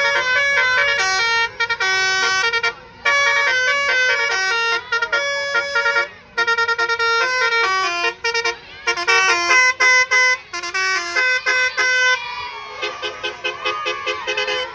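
Telolet horn of the basuri type, a multi-trumpet musical vehicle horn, playing a quick tune of short stepped notes in phrases with brief pauses. The tune stops about twelve seconds in.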